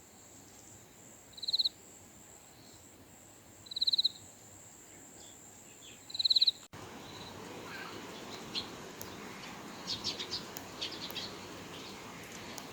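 Insects calling: a steady high whine, with a short buzzy chirp about every two and a half seconds as the loudest sound. About halfway through the sound changes abruptly to scattered short high chirps and ticks over a louder hiss.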